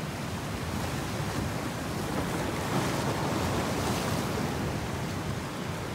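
Steady rushing wash of sea waves, swelling slightly about three seconds in.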